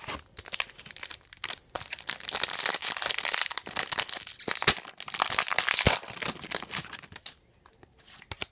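A trading card pack's wrapper crinkling and tearing as it is opened by hand. It starts about two seconds in, lasts several seconds, and is preceded and followed by a few light clicks and rustles.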